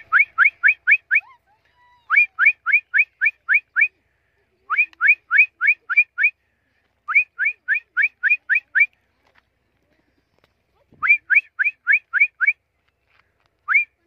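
Whistling: quick series of rising whistled notes, six or seven at a time at about five a second, repeated in groups every couple of seconds, with a single note near the end.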